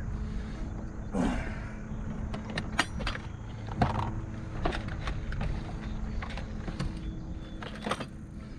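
Irregular knocks and clicks of gear being handled in the bottom of a fishing boat, over a steady low hum, with a short grunt-like sound about a second in.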